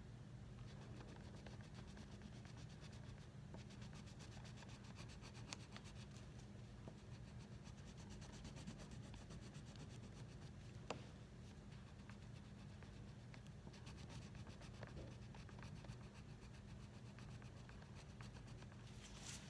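Faint scratching of coloring on paper over a low steady hum, with one light tick about eleven seconds in.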